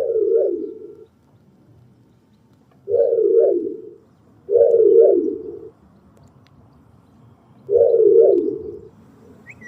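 Four pigeon-like coos, each about a second long with a two-step rise in pitch, from a Tesla Model 3's novelty sound effects.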